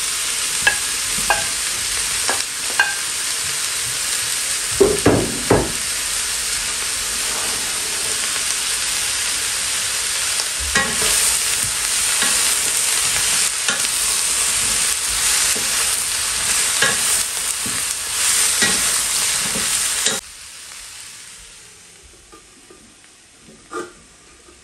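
Vegetables sizzling in hot olive oil in a deep non-stick frying pan while a wooden spatula stirs them, knocking and scraping against the pan. About twenty seconds in the sizzle cuts off suddenly to a much fainter hiss, with one light knock near the end.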